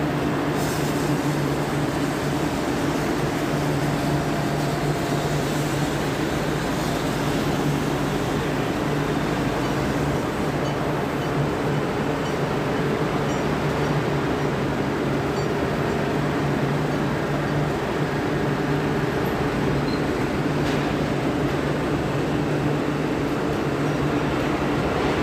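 Steady industrial machinery hum with a constant low drone and an even background noise, unchanging throughout.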